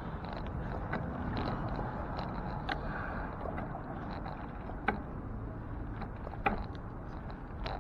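Steady road and wind noise of a moving bicycle ride, with a few sharp clicks along the way.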